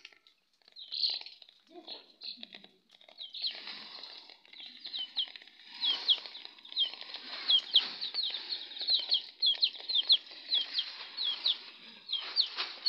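Chickens peeping in many short, high calls that fall in pitch, packed closely together from about three seconds in, over a rustling, flapping noise.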